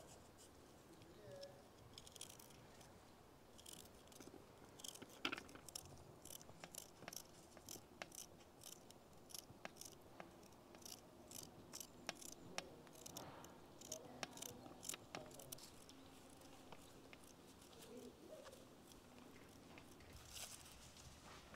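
Paring knife cutting through fresh celery stalks held in the hand: faint, crisp, irregular clicks and snaps as the pieces are sliced off and drop onto a metal tray.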